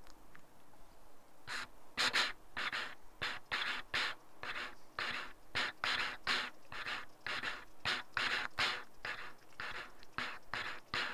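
Fast, rhythmic panting breaths, about three a second, beginning about a second and a half in.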